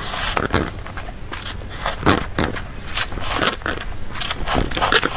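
Crunchy food being bitten and chewed close to the microphone: a run of irregular, crisp crackles and crunches.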